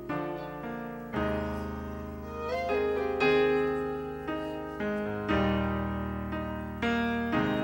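Instrumental piano introduction to a gospel song: slow, sustained chords struck about once a second, with one short sliding note near the middle.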